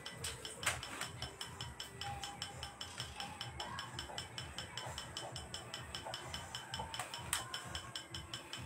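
Steady, rapid mechanical clicking, several evenly spaced clicks a second, over a low rumble, with two louder sharp clicks, one under a second in and one near the end.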